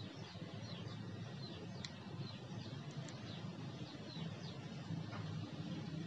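Ceiling fan with LED light running with a steady low hum, while a small bird chirps over it again and again in short, high, falling chirps, about two or three a second.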